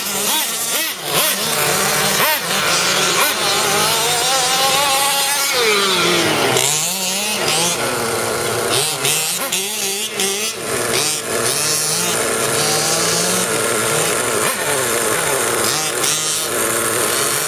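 Small two-stroke engines of RC off-road buggies revving up and down as they race, the pitch rising and falling with each straight and corner, with a long drop in pitch about six seconds in. More than one engine is heard at times.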